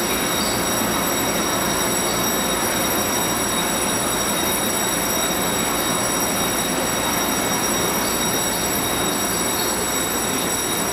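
A TRA EMU600 electric multiple unit standing at the platform with its onboard equipment running: a steady hum and rush of noise with a set of high-pitched steady whines that do not change.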